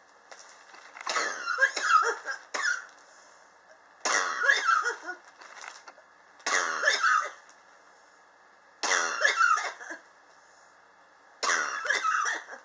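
A person coughing in five separate bouts, each a second or so long and a couple of seconds apart. It is a chronic cough that has gone on for about three years.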